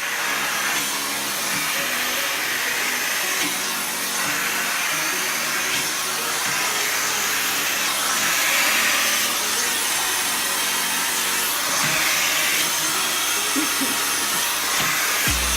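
A steady, loud rush of air from a motor-driven appliance running continuously, swelling and easing every few seconds, with background music underneath.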